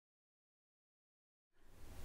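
Near silence: digital silence, with faint room noise fading in near the end.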